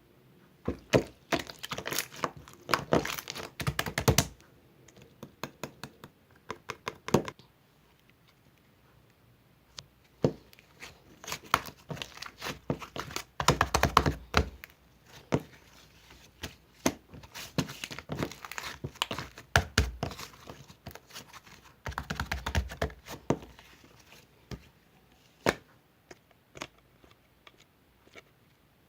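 Slime being squeezed and stretched by hand, giving dense crackling clicks and pops in spells of a few seconds with short pauses between.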